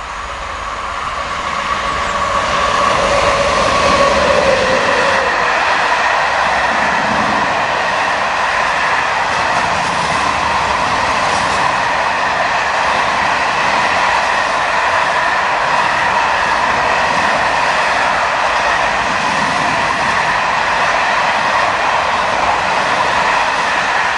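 Freight train of covered wagons rolling past. The sound builds as the locomotive approaches, with a tone that dips in pitch as it passes about four seconds in. It then settles into the steady rolling noise of the wagons' wheels on the rails, with faint high ringing tones.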